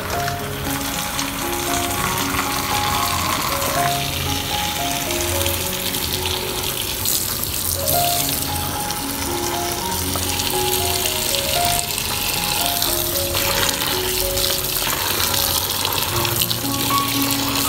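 A stream of tap water splashing into a plastic basin of mushrooms as hands rub and rinse them, starting right at the beginning. Background music with a melody of short notes plays over it.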